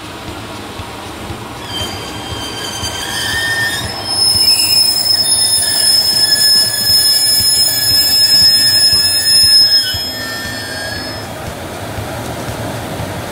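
Wheels of a slow-moving freight train, an EF210 electric locomotive hauling container wagons, squealing with several steady high-pitched tones over a low rolling rumble. The squeal sets in about two seconds in, is loudest in the middle and dies away near the end.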